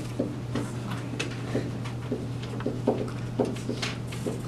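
Pen tapping and scraping against an interactive whiteboard as words are written on it: a run of short, irregular taps, several a second, over a steady low hum.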